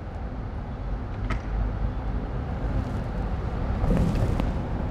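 Steady low background rumble of a workshop, with a faint click about a second in and a few light taps around four seconds in.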